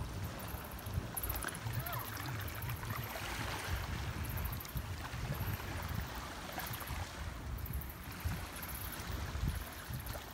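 Wind buffeting the microphone over open water as a steady, uneven low rumble, with faint water sounds around concrete pier pilings. A faint high buzz pulses on and off throughout.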